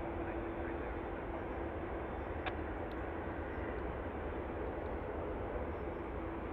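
Boeing 787-10 airliner's jet engines running at taxi power: a steady low rumble with a faint held whine that fades out midway and comes back near the end.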